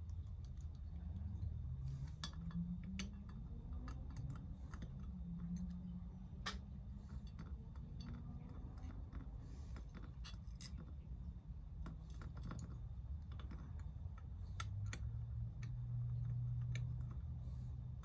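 Small, irregular clicks and taps of a black plastic base and interior being handled and pressed into a die-cast toy van body, over a low background hum.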